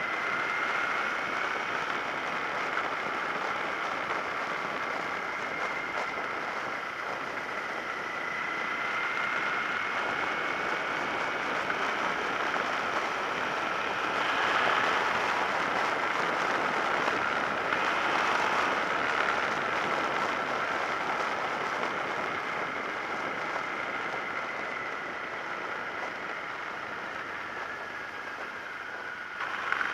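Wind rushing over a helmet-mounted action camera's microphone while riding a Suzuki SV650S motorcycle at road speed, with a steady high whine running underneath. The rush swells a little about halfway through.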